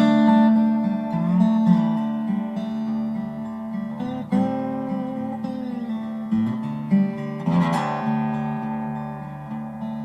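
Background music: acoustic guitar picking and strumming, with a bending, slide-like note about three quarters of the way through.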